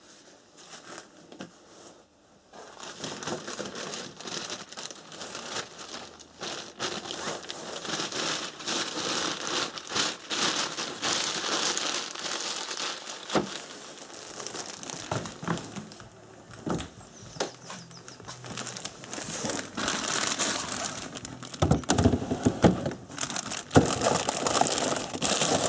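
Plastic bag crinkling and rustling in the hands as a motorcycle flywheel rotor is wrapped in it, with a few knocks near the end as the bag goes into a freezer drawer.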